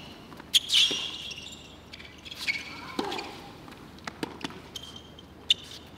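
Tennis rally on a hard court: racket strikes and ball bounces as a series of sharp pops about a second apart, with high squeaks from the players' shoes.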